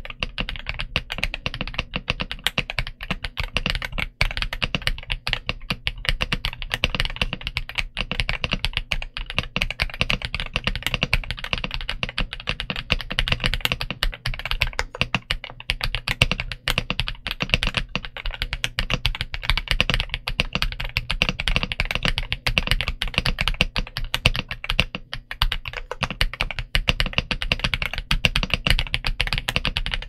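Fast, continuous typing on a Royal Kludge S85 mechanical keyboard with Cloud switches and double-shot PBT Cherry-profile keycaps: a dense, unbroken stream of keystroke clacks.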